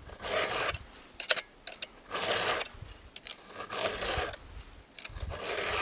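Round file being pushed across a chainsaw chain's cutter tooth to sharpen it: four even rasping strokes, about one every second and a half to two seconds, with light clicks of metal between strokes.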